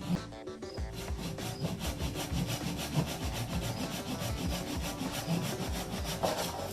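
Flush trim hand saw cutting through a red oak block with quick, steady back-and-forth strokes. It is finishing an angled cut that the table saw could not get all the way through.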